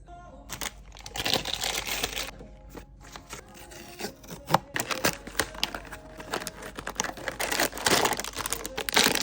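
Blind-box packaging being handled and torn open: wrapping crinkling and tearing, with many sharp crackles.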